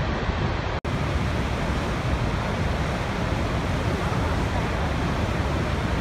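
Steady rush of Niagara's Horseshoe Falls pouring over the brink, with wind buffeting the microphone. The sound drops out for an instant about a second in, then carries on.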